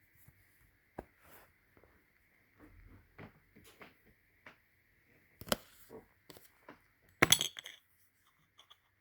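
Silver dollar coins and their plastic holders being handled and pressed into a coin album: a scatter of small clicks and clinks, with the loudest clatter about seven seconds in.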